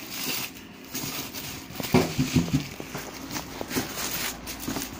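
Clear plastic packaging bag crinkling and rustling as it is tugged and handled around a boxed oven. A few short squeaks come about two seconds in and again near the end.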